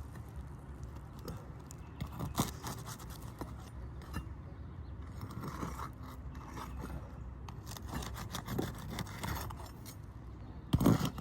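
Brittle asphalt shingles being pried loose around their nails, with scattered scrapes and clicks and a louder clatter near the end.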